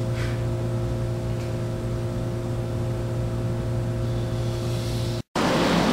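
Steady low machine hum with a few fixed tones in it, the room's background noise, under two faint scratches of a marker pen tracing around a plastic trim ring on plywood. The sound cuts out for a moment about five seconds in.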